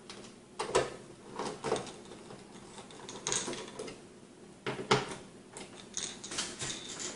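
Hand screwdriver tightening screws into a metal mounting plate on the back of a monitor: scattered, irregular clicks and small knocks of metal tool, screws and plate.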